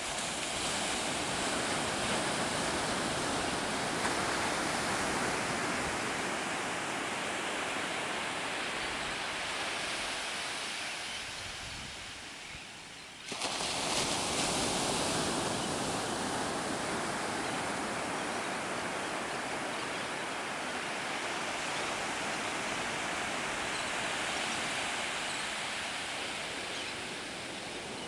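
Ocean surf breaking and washing up on a sandy beach: a steady rushing that slowly swells and fades, dips about twelve seconds in, then comes back abruptly.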